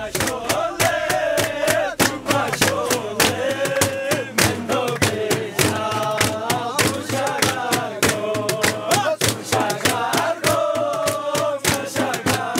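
A group of men singing a folk song together, accompanied by steady hand-clapping.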